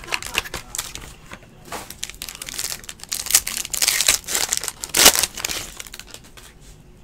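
Foil wrapper of a Panini Infinity football card pack crinkling and tearing as it is ripped open, busiest in the middle, with the loudest rip about five seconds in.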